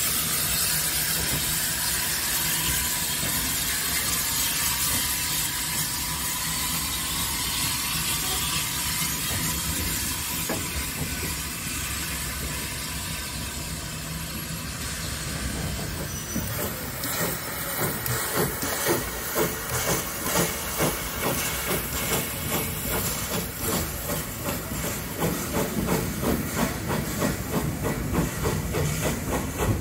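Steam hissing steadily from a steam-hauled train of carriages moving slowly past. About halfway through, a regular beat of roughly two a second sets in as the train picks up pace.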